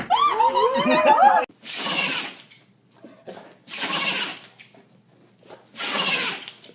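A short pitched, wavering animal cry, then an animal making three noisy, breathy bursts about two seconds apart, each lasting about a second.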